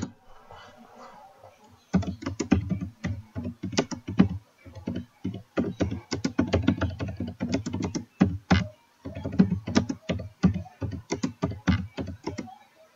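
Typing on a computer keyboard: a fast run of keystrokes starts about two seconds in and goes on with short pauses until near the end. A single sharp click comes right at the start.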